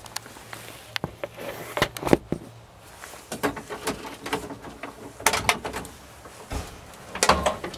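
Scattered knocks, clicks and rustling from hands handling things at the bare door frame, with no engine or motor running.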